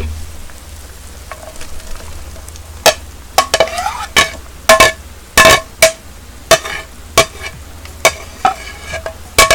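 Sharp metallic clinks, about a dozen irregular taps each with a short ring, as green onions are pushed off a knife blade into a pot of boiling beef and radish soup with chopsticks, over a low steady hiss from the boiling pot.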